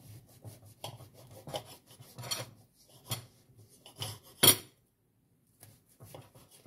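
Knife sawing through a sugar-glazed poppy-seed roll: a run of short rasping strokes, the loudest about four and a half seconds in, then a pause of about a second before the strokes start again.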